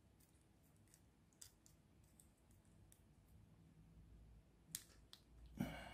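Faint, scattered clicks of 3D-printed plastic puzzle pieces being handled and pushed together, with a slightly louder rustle near the end.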